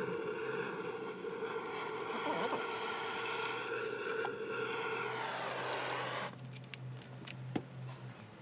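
Handheld butane gas torch on a cassette-gas canister, burning with a steady hiss as it scorches the inside of a wooden beehive box. About six seconds in its pitch falls and it cuts off, followed by a few small clicks.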